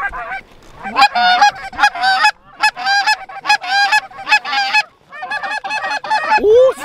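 Goose honks and clucks in rapid runs of several calls a second, breaking off briefly twice, with a lower, longer rising call near the end.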